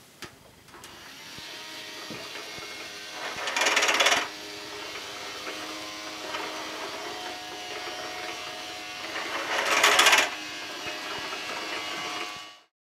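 Small battery-powered motor of a Casdon toy Dyson DC14 vacuum cleaner starting up about a second in and running steadily with a whine. Twice it grows louder for about a second, then the sound fades out near the end.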